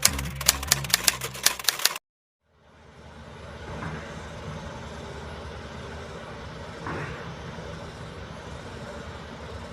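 Intro music with a fast ticking beat stops abruptly about two seconds in. After a short gap, the steady engine noise of heavy construction machinery fades in and runs on evenly, with a few brief swells.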